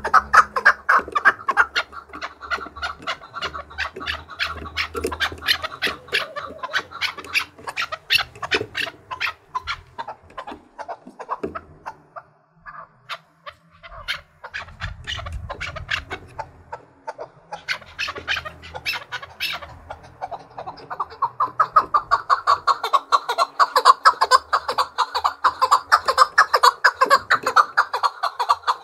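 Chukar partridge giving its rapid, repeated chuck-chuck rallying song, the challenge call of a male trained to sing against rival partridges. The notes come in fast runs, loud at first, dropping to a brief lull about halfway, then building up loud again in the last third.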